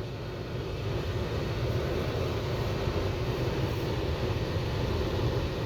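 Steady low rumble of a car being driven, with road and engine noise heard from inside the cabin.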